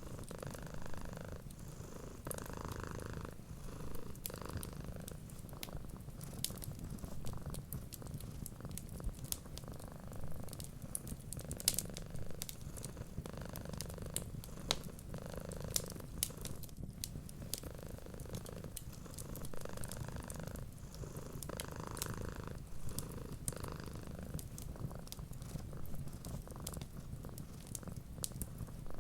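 A cat purring steadily, swelling and easing with each breath every second or two, over the sharp pops and crackles of a wood fire.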